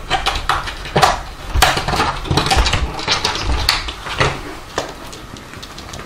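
Plastic pet-door flap rattling and clacking in its frame as a large cat pushes its way through, a run of irregular knocks that thins out near the end.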